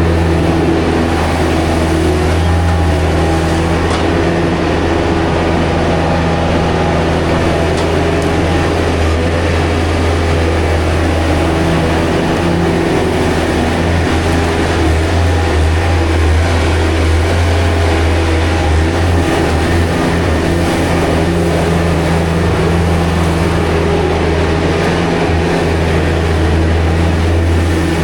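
Skid loader engine running steadily, a continuous low drone with overtones that wavers a little in the middle.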